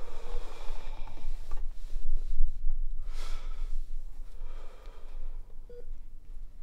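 A man breathing heavily, three slow audible breaths as he holds back emotion, over a low steady hum. A brief soft tone sounds near the end.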